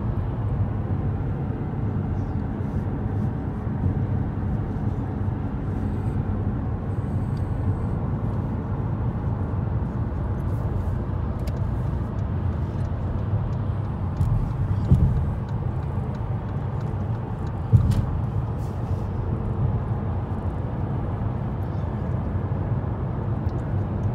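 Steady low road and engine noise heard from inside a car cabin at motorway speed, with two brief thumps in the second half.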